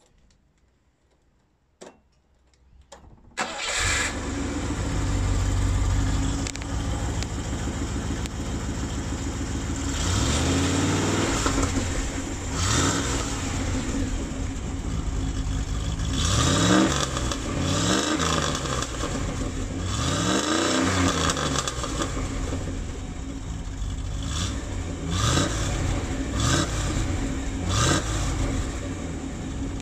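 Rover 3.5 V8 with an Edelbrock 500 carburettor starting about three seconds in and running through its Steve Parker conversion exhaust, heard at the tailpipe. It idles and is blipped up and down in revs several times.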